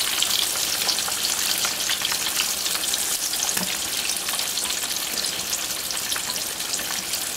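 Battered tilapia fillet pieces deep-frying in hot oil over high heat, a dense, steady sizzling crackle: the second, crisping fry.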